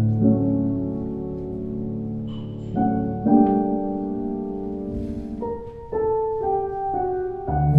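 Slow instrumental film-score music: held chords that change every second or two, moving faster near the end.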